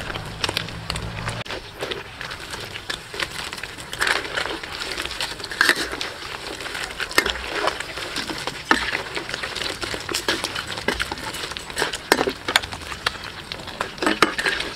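Crabs frying in hot oil in a steel wok, crackling and sizzling continuously, while a metal spatula stirs and tosses them, scraping and clanking against the wok every second or two.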